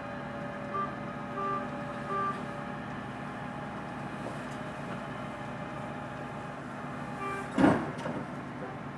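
Heavy vehicle engines idling in a steady hum. A vehicle backup alarm beeps three times in the first couple of seconds and once more later, and a loud sudden thump comes about three-quarters of the way through.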